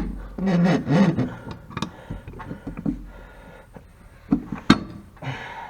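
A thud, then scattered sharp metal clicks and knocks as a riding-mower blade and tools are handled while the blade is fitted. A brief voice sound comes about a second in.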